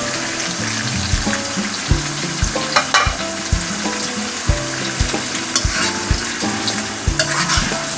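Chicken and freshly added ground tomatoes sizzling in hot oil in a karahi, with a spoon stirring through them.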